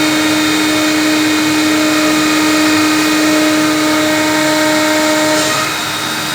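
CNC router spindle running with a steady whine while the bit cuts acrylic sheet, over a hissing cutting noise. About five and a half seconds in it becomes slightly quieter and some of its tones change.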